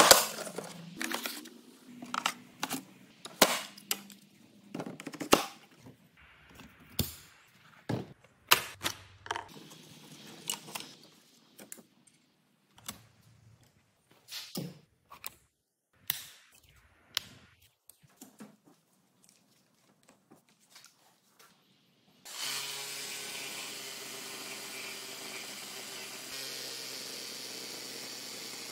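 A string of clicks and knocks as a Festool Systainer case is unlatched and opened and the saw is taken out and handled. About 22 seconds in, a steady power-tool run starts suddenly as the Festool RSC 18 cordless reciprocating saw cuts into a weathered timber beam, with an extraction hose on its dust attachment.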